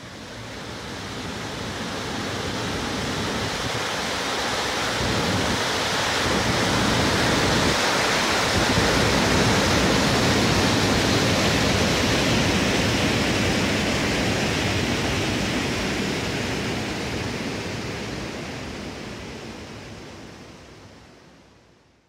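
Steady rushing roar of a waterfall, a dense even hiss of falling water that fades in over the first few seconds and fades out near the end.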